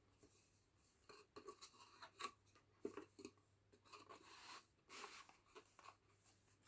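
Faint handling noises: a run of small clicks, taps and rustles from about a second in, as product packaging and containers are handled.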